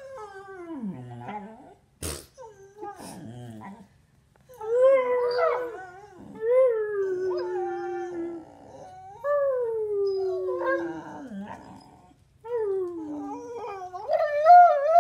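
Dog howling and whining in a series of long, drawn-out calls that mostly slide down in pitch, with a higher, louder call near the end.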